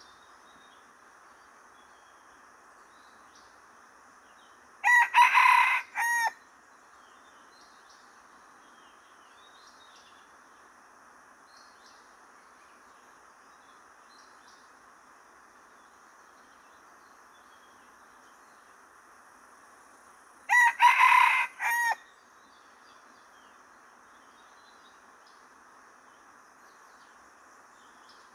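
Red junglefowl rooster crowing twice, about fifteen seconds apart. Each crow is short and loud, with a brief break before a clipped final note. A steady insect drone and faint bird chirps continue underneath.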